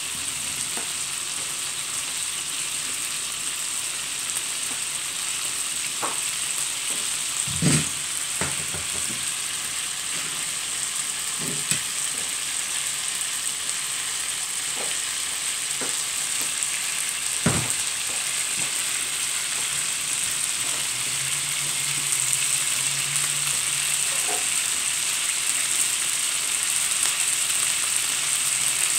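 Butter melting and sizzling in a hot frying pan, a steady hiss, with a few short knocks against the pan.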